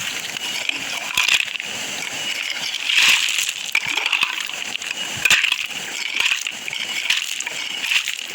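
Digging in a stony riverbed for a buried metal-detector target: irregular crunching and clinking strikes of a hand digging tool in gravel and rock, roughly once a second.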